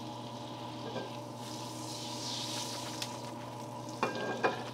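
Butter and a little oil sizzling in a frying pan on a gas burner, a soft hiss that swells around the middle, over a steady low hum.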